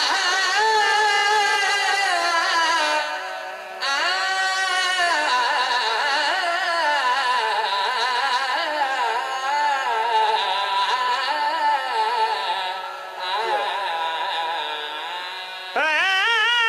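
A man's voice singing a qaseeda in long, drawn-out notes that bend and waver in pitch, with short breaths between phrases about three and a half seconds in and about thirteen seconds in, and a loud new phrase starting near the end.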